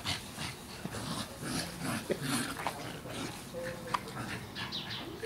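A pug and a chocolate Labrador play-wrestling, with a string of short, irregular breathy huffs and snuffles and a brief whine-like sound a few seconds in.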